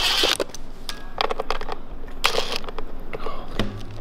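A cordless drill-driver's whine cuts off just after the start. It is followed by a few short scrapes and clicks as Phillips screws are backed out of a plastic winch control box and the box is handled on a paper-covered bench.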